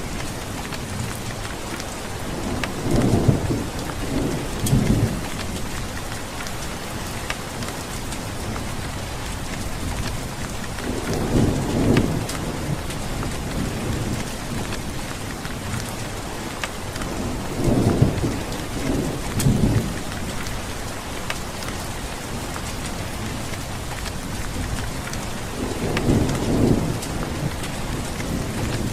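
Steady rain falling, with low rolls of thunder rumbling up four times, each lasting a second or two.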